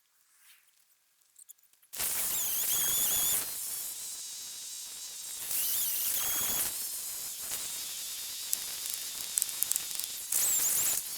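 Gas chainsaw running after two seconds of near silence, revving up three times with a high, wavering whine between steadier running.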